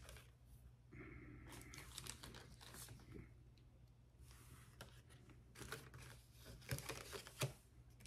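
Faint clicks and rustling as surgical instruments such as forceps are handled and sorted through, with a rustling scrape lasting about a second near the start and a cluster of sharper clicks later on.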